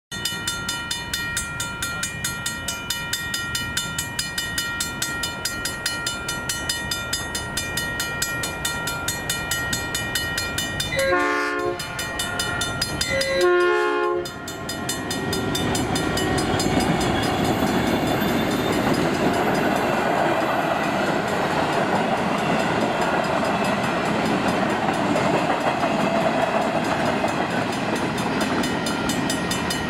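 Level-crossing mechanical bell ringing rapidly and steadily as the crossing activates. About eleven seconds in, a train horn sounds two blasts, each about a second long, and then the train passes with a broad rumbling noise that lasts to the end.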